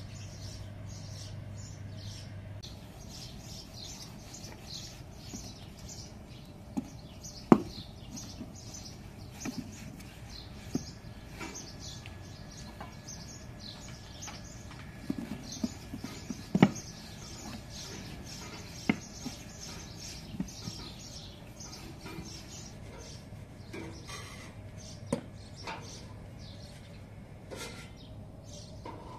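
Dense chirping of many small birds all through, with a few sharp knocks now and then, the loudest about a quarter of the way in and again past the middle: a wooden rolling pin knocking on a metal baking tray as flatbread dough is rolled out.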